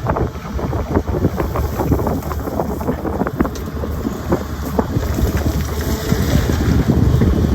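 Sany excavator's diesel engine running steadily, with frequent short knocks and clatters.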